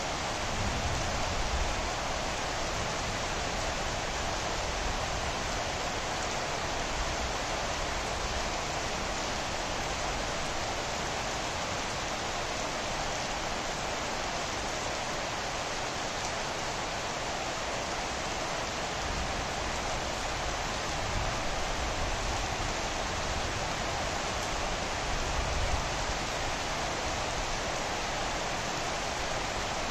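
Steady rain falling, a continuous even hiss, with a few soft low rumbles now and then.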